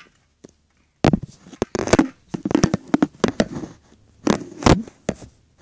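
Handling noise from a phone being picked up, moved and set in place: a series of sharp knocks and bumps with short scrapes, rubbing right against the microphone.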